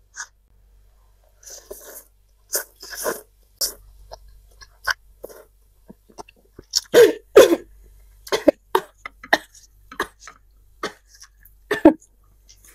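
Close-up eating sounds of a person slurping and chewing spicy instant noodles in broth: a string of short, irregular slurps and mouth smacks, loudest about seven seconds in.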